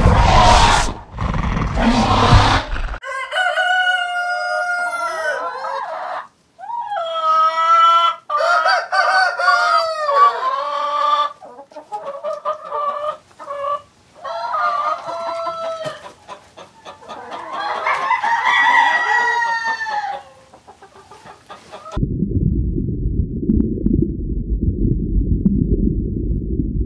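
A rooster crowing several times over most of the stretch, in drawn-out calls with pauses between them. It is preceded by two loud rough roar-like bursts in the first few seconds, and near the end it gives way to a steady low rumble.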